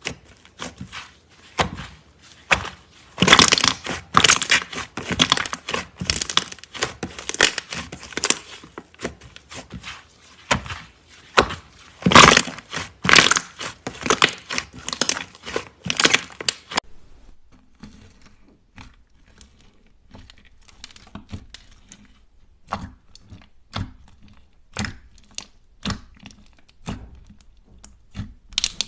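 Slime being squeezed, poked and pressed by hand, giving dense sharp crackles and pops that thin out to sparser, quieter clicks about two-thirds of the way through.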